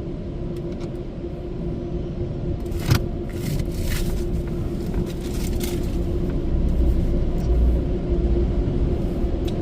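Ryko Softgloss MAXX automatic car wash running, heard from inside the car: a steady low rumble with a constant hum, a few sharp taps about three to six seconds in, and the rumble growing a little louder near the end.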